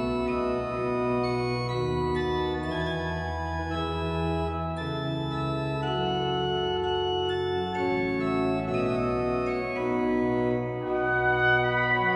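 Church pipe organ playing slow, sustained chords that change every second or two. Near the end a trumpet comes in over the organ and the music gets louder.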